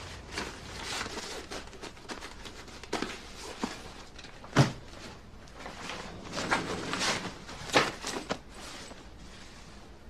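Clothes rustling and objects being handled and set down while packing a suitcase, a run of soft knocks and rustles with one sharp thud about halfway through and a busier spell of handling near the end.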